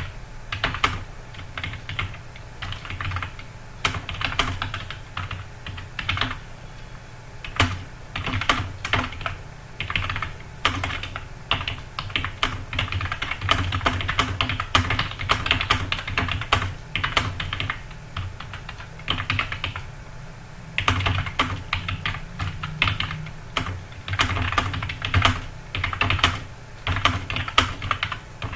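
Computer keyboard being typed on fast and continuously during a timed typing test, in irregular bursts of rapid key clicks with brief pauses between runs. A steady low hum sits underneath.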